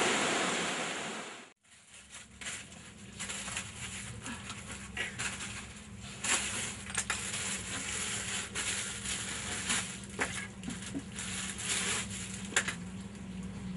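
Stream water running, fading out in the first second and a half. Then irregular scraping and small knocks of a hand tool worked over a tray, with a low steady hum behind.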